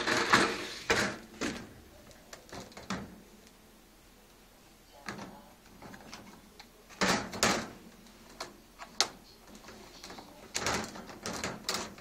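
Wire racks and plastic cutlery basket of a Gorenje dishwasher being pulled out and handled: clattering knocks and rattles in several short clusters, with quiet gaps between.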